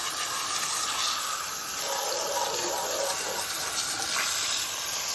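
Water spraying steadily onto the ATV, rinsing off the cleaner.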